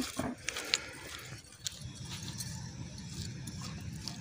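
Bangles clinking and jangling on a woman's wrists as her hands clean small fish, with a few sharp clicks in the first couple of seconds over a low steady rumble.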